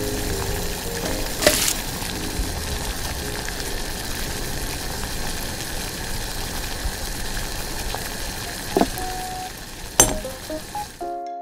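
Water boiling hard in a tiny stainless steel pot: a steady bubbling hiss. Light metal clinks against the pot about a second and a half in and again near the end, as the egg is scooped out with a small ladle.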